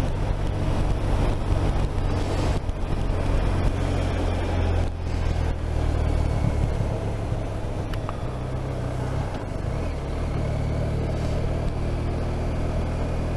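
BMW R 1250 RT's boxer-twin engine running under way, its note shifting a few times with road speed, over a steady hiss of wind and tyres on the wet road.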